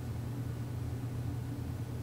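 Steady low hum with faint hiss: classroom room tone, such as ventilation or other building machinery noise.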